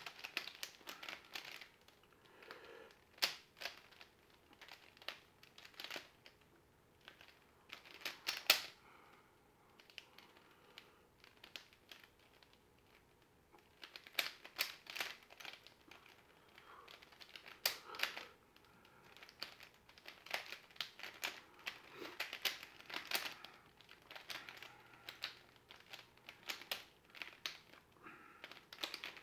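Plastic mirror cube being twisted by hand: irregular clicking and scraping of its layers turning, in quick runs of turns with a short pause about ten seconds in.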